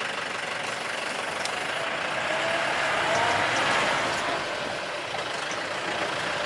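Safari vehicle's engine running with road noise, swelling a little around the middle, with a faint wavering whine about halfway through.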